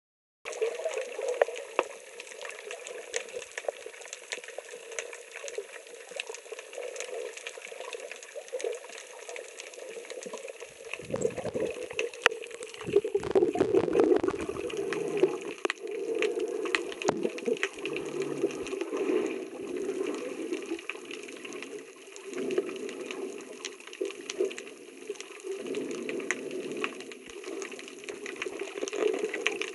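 Muffled water noise from a camera held underwater: a steady dull rush with scattered clicks and crackles, swelling louder and deeper for a few seconds around the middle.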